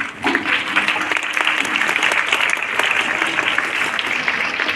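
Crowd applauding: many people clapping steadily, in a dense, continuous patter.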